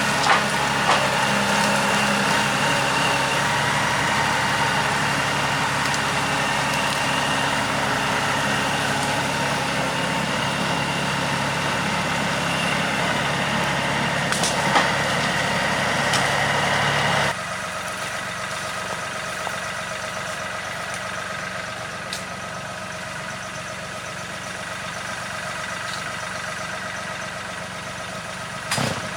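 Engine of a Woodland Mills HM126 bandsaw mill running steadily while milling a cottonwood log. About seventeen seconds in, the sound drops abruptly to a quieter steady run.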